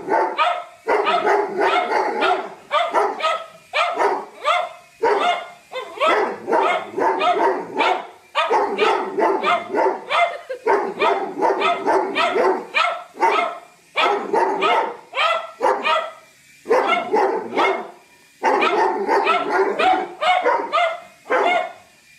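A Doberman barking over and over at a small toy remote-control helicopter hovering overhead. The barks come fast, in runs of several, with short breaks between the runs.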